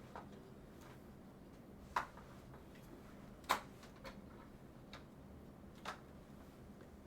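Scattered sharp clicks and light taps of small objects being handled, with the two loudest about two and three and a half seconds in and a few fainter ones after.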